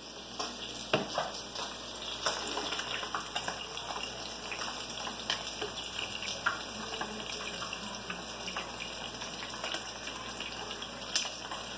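Breaded fillets shallow-frying in hot oil in a deep pan: a steady sizzle with scattered crackles and pops.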